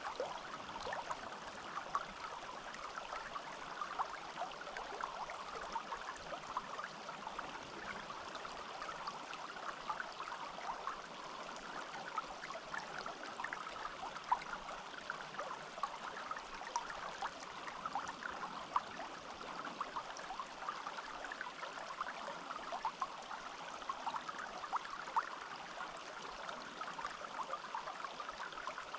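Small forest stream flowing steadily over stones, a continuous babble with many little splashes and gurgles.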